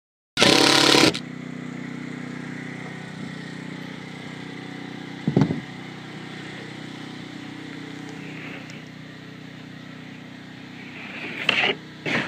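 A cordless drill driving a screw into OSB roof sheathing in one loud burst of under a second, then a steady engine hum with a couple of short knocks.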